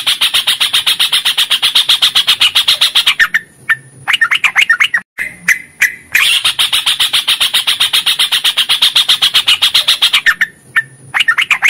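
Yellow-vented bulbul (trucukan) singing its long rapid trill ('ropel'), a fast run of repeated chattering notes at about a dozen a second. Two long runs of three to four seconds each are separated by shorter bubbling phrases.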